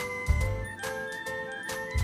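Tinkly electronic music: a chiming melody of quick notes over low bass pulses.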